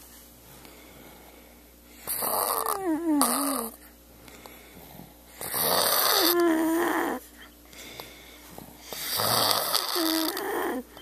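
A sleeping person snoring: three long snores about three and a half seconds apart, each carrying a squealing whistle. In the first snore the whistle slides down in pitch.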